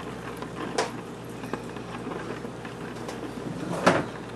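Metal spoon stirring thick anchovy dipping sauce in a plastic tub, with a light clink about a second in and a louder knock near the end.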